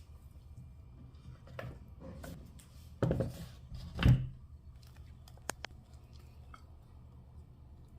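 Kitchen handling sounds: a few scrapes and two louder knocks of utensils or dishes, then two sharp clicks about five and a half seconds in, over a steady low hum.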